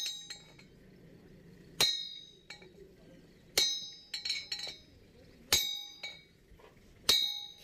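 Hammer blows on a steel drift driving a bearing cup into a truck wheel hub: sharp metallic strikes about every two seconds, each ringing briefly, with a few lighter taps between.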